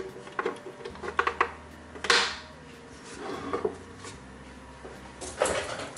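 Scattered light clicks and knocks of hands handling a ventilator prototype: a power cable connector pushed onto its circuit board, then the plywood mounting board gripped and shifted.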